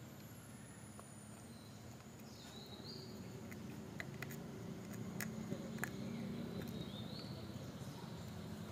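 Puppy chewing and gnawing on a bone, with a run of sharp crunching clicks about halfway through.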